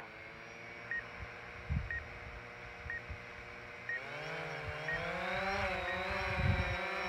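DJI Phantom 4 Pro quadcopter's propellers whirring at idle on the ground, then rising in pitch as it lifts off about four seconds in and settling into a steady hover. A short high beep repeats about once a second from its obstacle-detection sensors.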